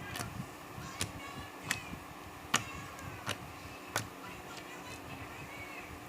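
Homemade glue slime being squeezed and kneaded by hand, giving about six sharp clicking pops, roughly one every 0.7 s, that stop about four seconds in.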